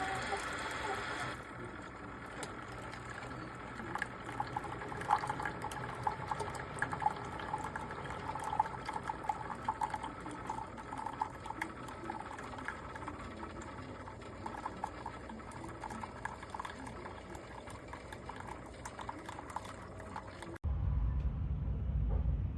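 Single-serve pod coffee maker brewing, with liquid trickling and gurgling into the cup in small irregular pops. Near the end it cuts suddenly to a steady low rumble.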